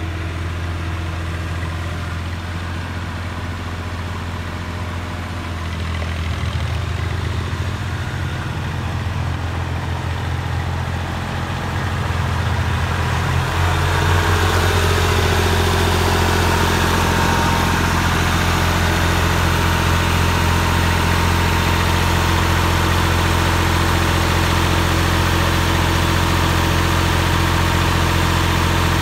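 Massey Ferguson 240's three-cylinder Perkins diesel engine running steadily, growing louder about six seconds in and again about thirteen seconds in, then holding steady.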